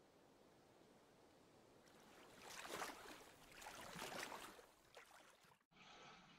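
Faint waves washing in, swelling twice, then cutting off suddenly near the end, leaving quiet room tone.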